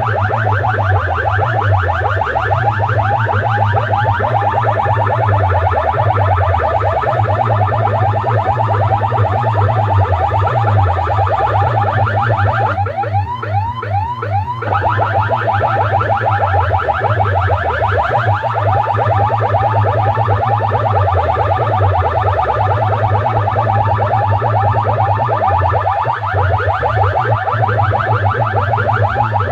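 DJ loudspeaker boxes blasting a loud siren-like warbling track over a heavy bass. The warbling changes briefly about halfway through, with a short sweep in pitch.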